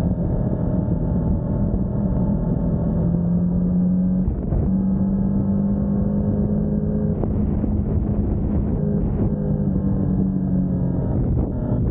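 Motorcycle engine running steadily at road speed, heard from the bike itself, with the rumble of riding beneath it. About four seconds in the engine note breaks off briefly and comes back a little higher, and it dips again near the end.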